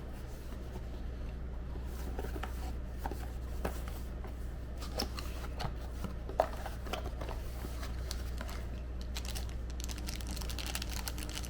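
Handling noises from unboxing: scattered small clicks and rustles as packaging and camera gear are moved about, with one sharper click about six seconds in, over a steady low hum.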